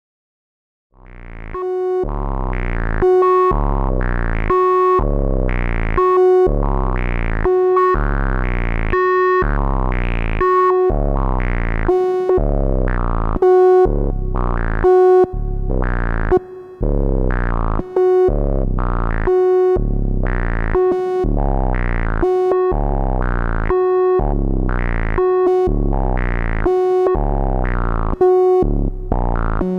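Breadboard-built DIY analogue synthesizer (VCO through a voltage-controlled filter, gated by a step sequencer) repeating the same buzzy note in a steady rhythm, a little more than once every two seconds, starting about a second in. Its brightness shifts as the filter's cutoff knob is turned by hand.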